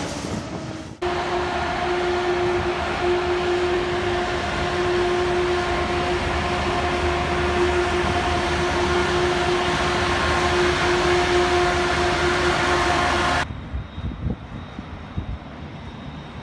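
Class 18E electric locomotive standing with a steady electric hum and a held whine over a low rumble. The hum cuts off suddenly near the end, leaving a quieter low rumble with a few knocks. It is preceded by about a second of louder train noise that also cuts off sharply.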